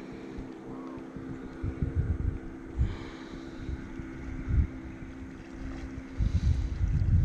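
A river boat's motor running steadily at a constant pitch, with wind gusting and rumbling on the microphone, strongest near the end.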